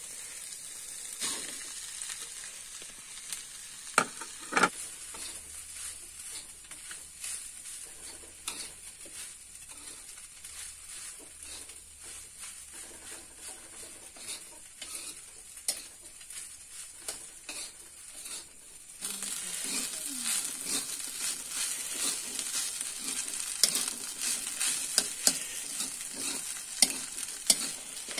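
Fried rice being stir-fried in a wok: a steady sizzle with the spatula scraping and tapping against the pan. Two sharp knocks come about four seconds in, and the sizzling and scraping grow louder about two-thirds of the way through.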